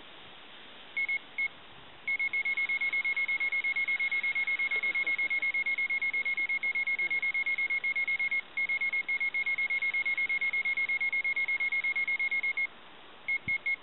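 Electronic carp bite alarm sounding a single high tone. A few stray bleeps come first, then a fast, even run of beeps at about five a second, broken once briefly and thinning out near the end: line running off the reel as a fish takes the bait.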